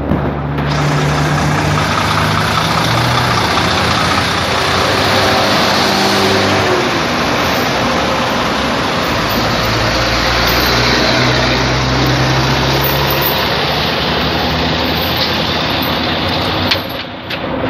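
Heavy truck engines running close by: a loud, steady low engine note that shifts in pitch a few times, with a brief drop in level near the end.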